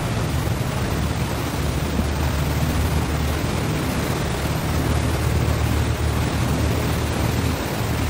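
Ferry's churning wake: foaming water rushing steadily behind the boat, with the ferry's engine humming low and steady underneath.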